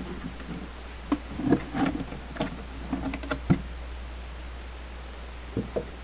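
Clicks and knocks of a vintage Remington Portable typewriter's carrying case being unlatched and its lid lifted off, scattered through the first three and a half seconds, with two more knocks near the end.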